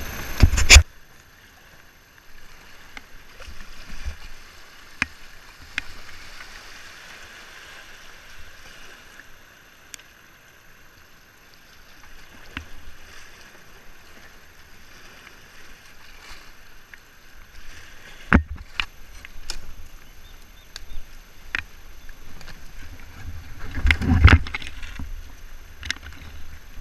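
Kayak being paddled down a very shallow, gravelly stream: a low steady rush of water with scattered knocks and clicks from the paddle and plastic hull against stones and wood. A loud knock comes about half a second in, and a louder cluster of knocks and scraping comes a few seconds before the end as the kayak runs into branches.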